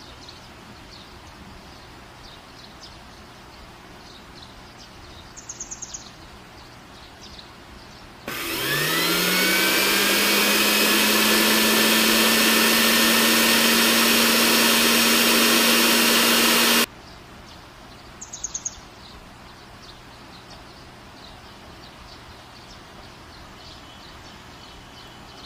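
Small motor of a miniature mixer grinder spinning up with a quickly rising whine, then running steadily for about eight seconds as it grinds broken biscuits in its jar, and cutting off suddenly.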